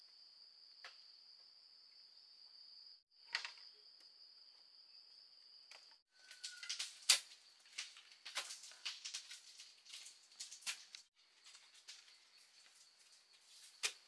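Insects droning steadily at one high pitch, cutting out abruptly about three seconds in and again about six seconds in. From about six seconds in, a run of irregular sharp clicks and taps sounds over the drone.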